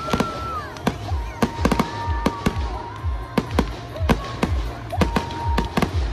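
Fireworks display: aerial shells launching and bursting in quick succession, several sharp bangs and crackles a second, each with a deep rumbling echo.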